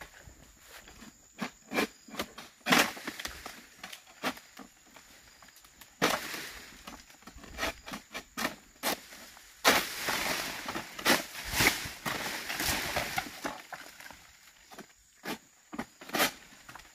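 Oil palm being cut with a long-poled harvesting sickle: sharp cracks and snaps as the blade cuts through frond stalks, and rustling crashes as cut fronds fall through the leaves, once about six seconds in and again, longer and louder, from about ten seconds.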